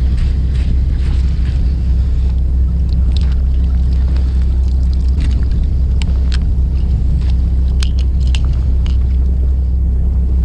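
A fishing boat's engine running steadily, a low drone, with a few light sharp clicks over it.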